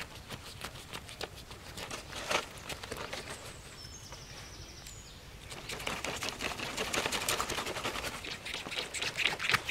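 Knife blade sawing and scraping through a crocodile's scaly hide: rapid scratchy clicking strokes that get denser and louder about halfway through.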